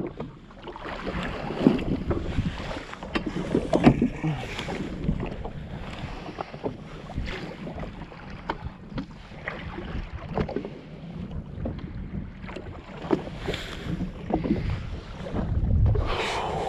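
Water slapping and splashing against a jet ski's hull, with wind buffeting the microphone and irregular knocks on the craft.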